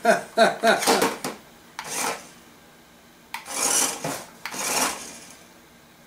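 Small battery-powered RC stunt car scraping and clattering on a tabletop in short bursts of about a second, as it spins and tips over on the table. A man chuckles briefly at the start.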